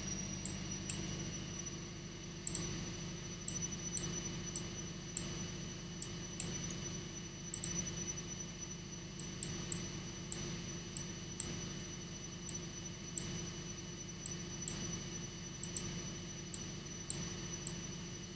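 Computer mouse clicking at irregular intervals, some single clicks and some quick double clicks, as tracking points are placed in software, over a faint steady hum.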